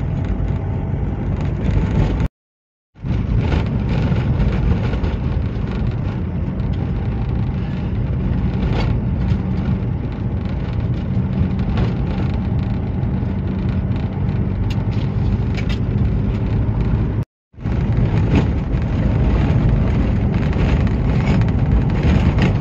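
Car driving on an unsealed dirt road, heard from inside: a steady low rumble of tyres on the dirt and engine, with light ticks of grit. The sound drops out twice for a moment.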